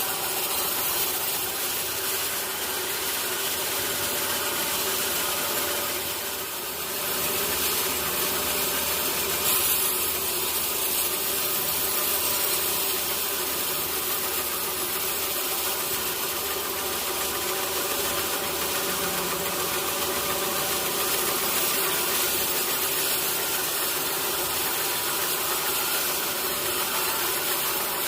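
Sawmill saw running steadily while cutting a teak log, a continuous machine noise with a high whine, dipping briefly about six seconds in.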